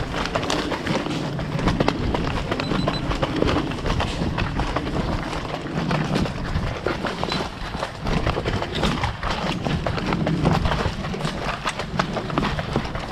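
Quick, rhythmic running footsteps of an airsoft player on the move, a steady patter of footfalls.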